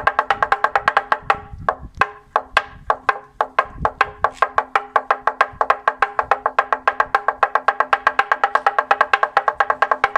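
Toaca, a hanging wooden semantron plank, beaten with wooden mallets in a rapid, even rhythm, each knock ringing with the same hollow wooden pitch. About two seconds in, the beating slows and breaks into a sparser, irregular pattern, then picks up again into the fast steady roll about four seconds in.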